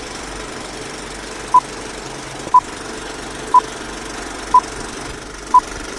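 Film-leader countdown sound effect: a short, high beep once a second, five times, starting about a second and a half in, over the steady whirr of a film projector running.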